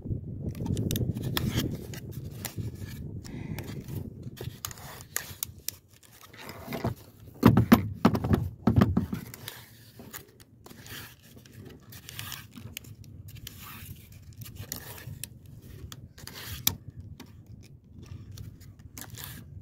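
Fishing line being hand-wound around a jug-fishing float while a hooked fish is hauled in: scraping and clicking of hands and line against the float, with a louder stretch of knocks about seven to nine seconds in.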